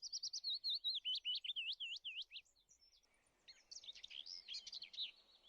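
A small songbird singing: a fast run of high, twittering chirps, a short pause about halfway, then a second twittering phrase.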